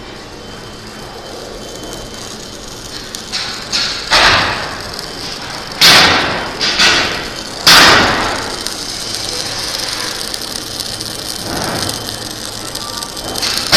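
MIG (semi-automatic) welding on a steel duct: an even crackling hiss, broken by about five loud sudden knocks with short ringing tails.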